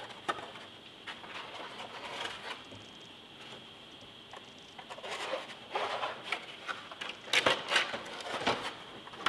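3D-printed plastic wing sections clicking, rattling and knocking as they are slid along a carbon spar tube and set down on a table. The loudest run of knocks comes near the end.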